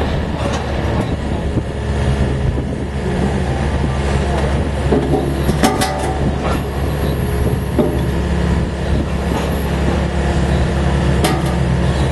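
The diesel engine and hydraulics of the excavator carrying a REMU XO 2090 Crossover screening bucket run steadily as the bucket is moved onto its screening module, with a couple of short metal knocks, one about halfway and one near the end.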